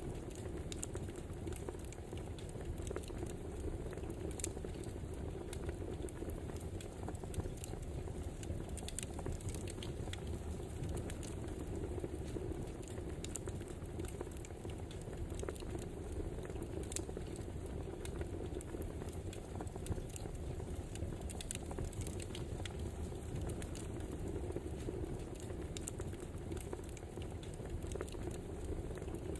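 Wood fire crackling: a steady low rush with many small, irregular pops and snaps.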